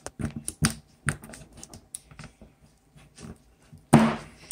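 Metal scraper blade ticking and scraping against the build plate of an Elegoo Saturn resin 3D printer as it is worked under a freshly printed resin model to pry it loose. A run of short sharp clicks, then one louder, longer scrape about four seconds in.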